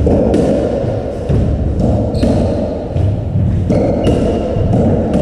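Racketball rally on a squash court: about five sharp hits of racket on ball and ball off the walls, roughly a second apart, with a couple of short shoe squeaks on the wooden floor, over a steady low rumble of the hall.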